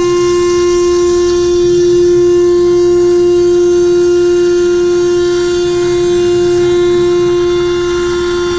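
Router 2030 CNC router's spindle running at a steady high-pitched whine while its end mill cuts through a nylon sheet.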